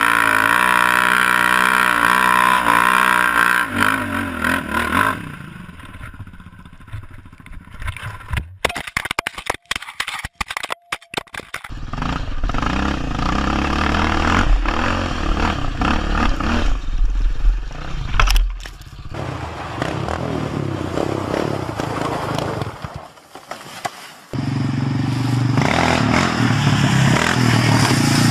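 Off-road motorcycle and quad-bike engines running and revving, a wavering engine note in the first few seconds, with scraping and clattering as the machines crash. The sound changes abruptly several times as one clip gives way to the next.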